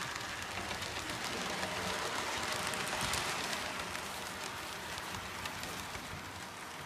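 Model East Coast HST train running past on the layout's track: a steady rushing noise of wheels and motor with light clicks, loudest about three seconds in and then slowly fading.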